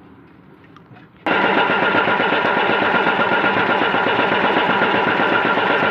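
MAN TGA truck's diesel engine turning over, kicking in abruptly about a second in and going on loud and steady with a fast even pulse.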